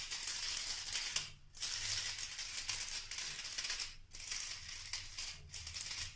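Aluminium foil crinkling as it is pressed and crimped by hand around the rim of a paper cup, in spells broken by short pauses.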